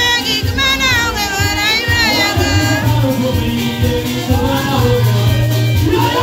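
Live gospel singing: a voice singing into a microphone over music with a strong, steady bass line.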